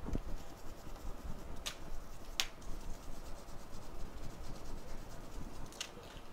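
Rubbing and scrubbing as a BGA reballing stencil is cleaned, with a few short sharp clicks of the tool or stencil against the bench.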